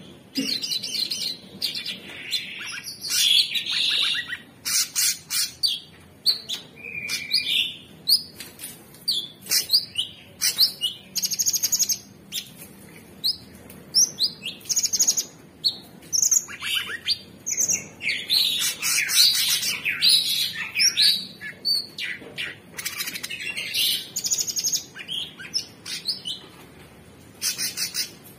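Orange-bellied leafbird singing a long, varied song: rapid trills, whistled glides and chattering notes in quick succession, broken by brief pauses.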